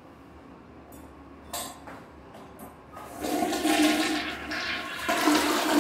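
Danze toilet flushing: a short click about one and a half seconds in, then water rushing loudly into the bowl from about three seconds in.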